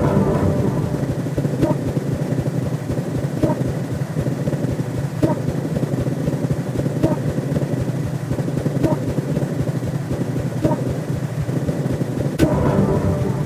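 Science-fiction sound effect playing as a steady, dense low rumbling drone. A soft pulse repeats about every 1.8 seconds, and the drone swells near the start and again near the end.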